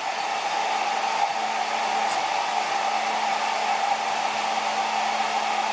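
Hair dryer running steadily, an even blowing whir with a low hum underneath.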